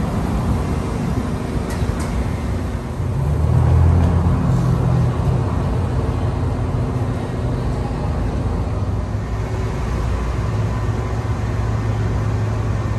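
Road traffic noise: a steady rumble of passing vehicles with a low engine hum, swelling louder about four seconds in and again near the end.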